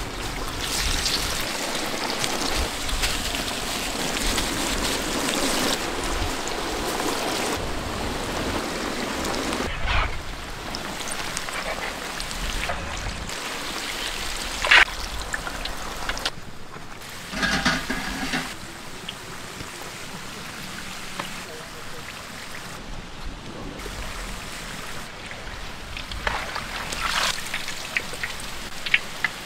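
Palmyra root tuber vadas deep-frying in a wok of hot oil, a steady bubbling sizzle that is louder for roughly the first ten seconds and softer after, with a few short sharp knocks.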